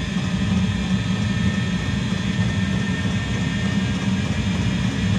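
Eberspacher D9W diesel-fired water heater running just after a successful ignition: a steady roar from its burner and combustion air fan.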